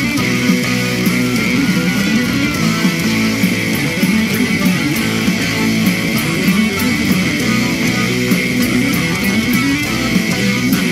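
TV comedy show's opening theme music, a guitar-led band piece with a steady beat.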